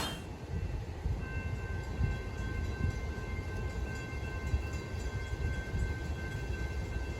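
A train approaching in the distance: a low rumble, with a faint steady high-pitched tone that comes in about a second in and holds.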